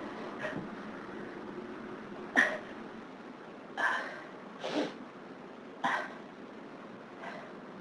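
A person sneezing over and over in a hay-fever fit: four loud, sharp sneezes about a second or so apart in the middle, with a softer one near the start and another near the end.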